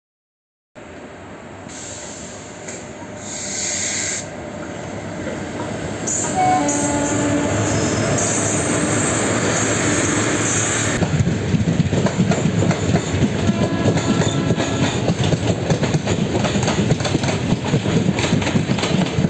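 Train running on the track. The sound starts abruptly and builds up, with a few brief tones near the middle. From about halfway it becomes a louder, rapid clickety-clack of wheels over the rails.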